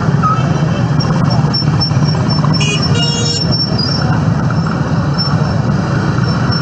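Road traffic with a steady engine rumble, and two short shrill beeps about two and a half and three seconds in.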